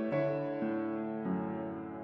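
Background music: slow, gentle piano, single notes struck every half second or so and left to ring and fade.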